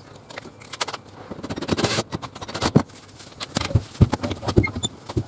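A small log burner stove being rocked and shifted off its mount: irregular scrapes and knocks of the heavy metal stove against its base.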